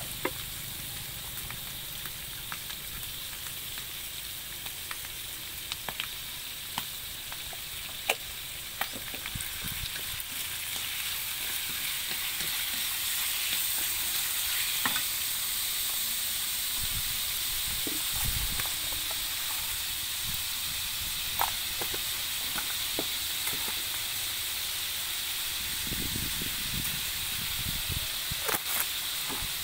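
Shallots, garlic and chopped rat meat frying in lard in a pan: a steady sizzle with scattered sharp pops, stirred now and then with a few dull knocks.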